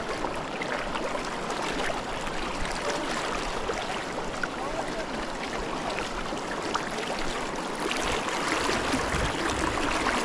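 Water running and splashing steadily, like a stream or water moving around a boat.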